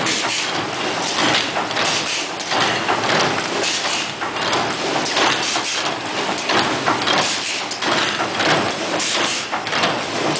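Bubble kraft bag making machine running with a loud, continuous clatter of quick, uneven knocks.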